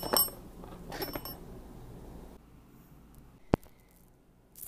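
Alarm clock rehoused in a pencil case beeping with short high-pitched beeps about a second apart, twice in the first second and a half, then a single sharp click about three and a half seconds in.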